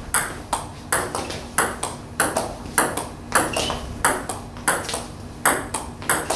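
Table tennis forehand push rally: a steady rhythm of sharp clicks as the ball is pushed off the rubber of the bat and bounces on the table, a louder click about every half second with softer ones between.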